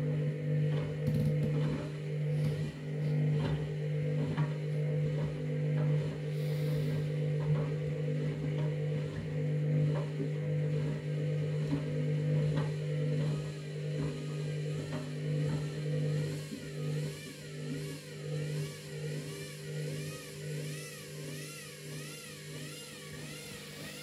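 Front-loading washing machine running with a wet bath mat in the drum: a steady motor hum with scattered knocks from the load turning. In the second half a faint whine rises and falls about once a second as the sound eases off slightly.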